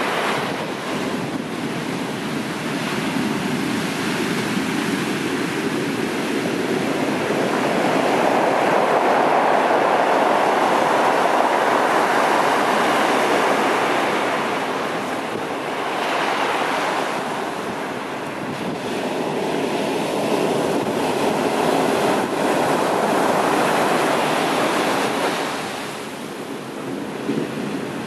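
Heavy sea surf breaking and foaming up a sandy beach: a steady rush of water that swells and ebbs as the waves come in.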